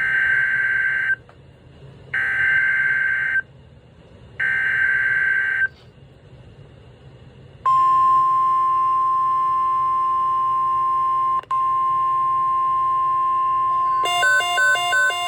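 Emergency Alert System SAME header: three short bursts of buzzy digital data tones, about a second apart. Then a long steady attention tone starts about halfway through and breaks off briefly once. Near the end a fast, pulsing pattern of several beeping tones takes over.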